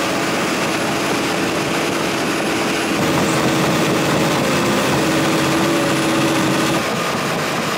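Komatsu D71 bulldozer's Cummins-built diesel engine running steadily under load as the machine pushes a full blade of soil, heard close up on the machine as a loud, dense rush with a faint steady whine underneath.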